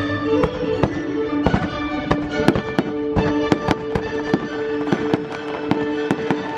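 Fireworks bursting in a rapid series of sharp bangs, several a second, over the show's music with sustained held notes.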